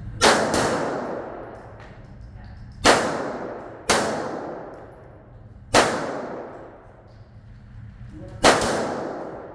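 Handgun shots, six in all at uneven spacing, the first two in quick succession and the rest a second or more apart, each with a long echoing tail.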